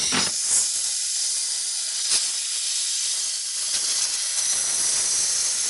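Compressed air hissing steadily as it is blown into a wet engine-computer (PCM) connector to drive out the moisture that causes the rough idle and surging.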